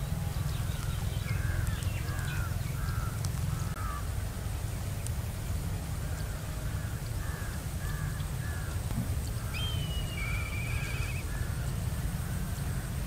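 Crows cawing in repeated series of short calls, over a steady low rumble. Near the end there is a single higher call that rises and then buzzes briefly.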